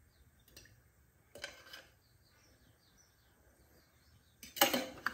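Quiet kitchen with faint high chirps in the background and a brief knock about a second and a half in, then a clatter of metal utensils and dishes near the end.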